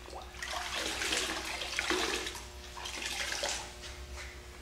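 Water sloshing and dripping in several swells as a towel is soaked in clean water to hand-rinse acid etch off bare aluminium.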